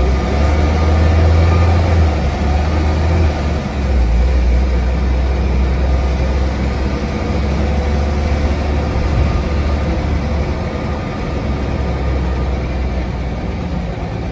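Diesel engine of a single-deck bus heard from inside the passenger saloon, a steady low rumble, strongest in the first few seconds with a brief dip about three and a half seconds in.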